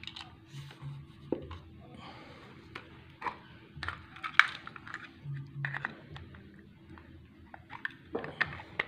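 Handling noise of small plastic model trucks picked up, turned over and set down on a work table: scattered light clicks, taps and knocks, the sharpest about four and a half seconds in, over a faint steady hum.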